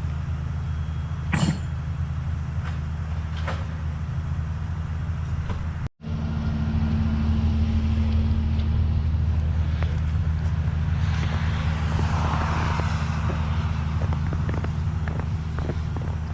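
Vehicle engine idling with a steady low rumble, with a few faint clicks over it; the sound breaks off for an instant about six seconds in and resumes at a slightly different pitch.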